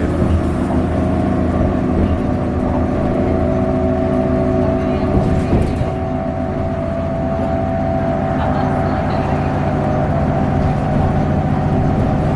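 Steady engine drone and road rumble inside a moving vehicle, with a constant hum of several steady tones.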